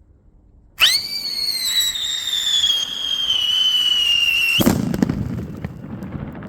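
A whistling firework lets out a shrill, steady whistle for about four seconds, its pitch sinking slowly. It ends abruptly in a bang with a rumbling echo that fades.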